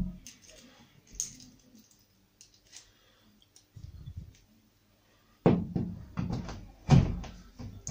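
Light metallic clicks as an M5 × 52 metal hollow-wall anchor is fitted onto a Fischer hollow-wall-anchor setting tool. About five and a half seconds in comes a quick run of loud knocks as the anchor is driven into the plasterboard wall with the tool.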